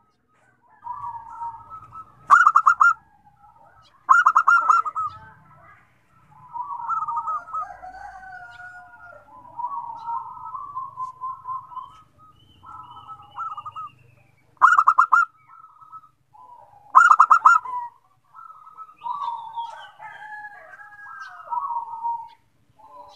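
Zebra doves (perkutut) cooing in overlapping phrases, with four loud rolling notes standing out.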